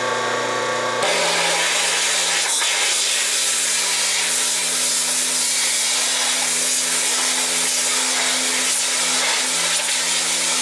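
RhinoSpray Model 1500A electric pressure washer running. About a second in, the spray gun opens and a steady hiss of high-pressure water jetting onto a silkscreen mesh takes over, and the pump's hum shifts pitch under load.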